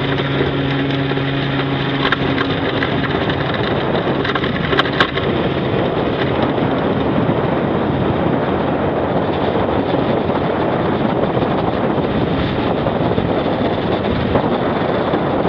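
Steady rush of wind and propeller wash over the microphone of a camera mounted on the wing strut of an electric-powered Zigolo ultralight as it speeds across grass, with a faint low hum from the electric motor and propeller for the first three seconds or so. A couple of brief knocks come around the middle.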